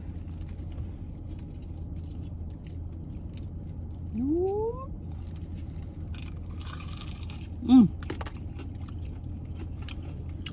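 A person chewing fried chicken wings with small wet mouth clicks, over a steady low hum from the car's air conditioner. About four seconds in she makes a rising "mmm", and near eight seconds a short, louder voiced sound.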